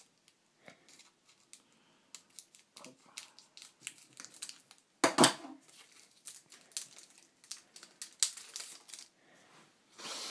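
Scissors snipping the foil wrapper of a trading-card booster pack, then the foil and the cards' plastic wrapping crinkling as the cards are pulled out: scattered snips and crinkles, the loudest about five seconds in.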